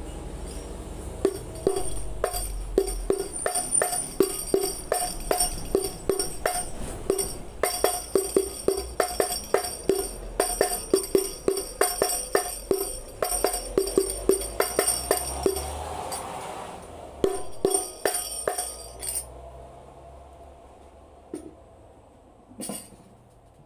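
Carved Jepara rebana, a hand frame drum with small brass jingles in its frame, struck by hand in a steady beat that quickens partway through. Each stroke is a ringing drum tone with the jingles shimmering over it. The playing breaks off after about 17 seconds, leaving a few scattered taps.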